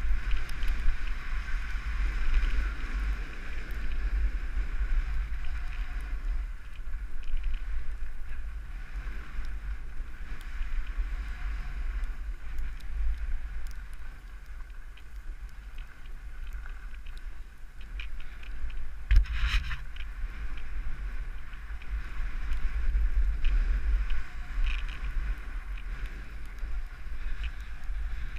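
Wind buffeting a rider-mounted camera microphone during a descent through powder snow, over a steady hiss of snow sliding underneath. A brief, louder rasp about 19 seconds in.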